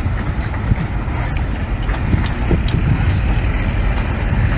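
Steady low outdoor rumble, with a few faint clicks and smacks of biting and chewing a whole cooked octopus.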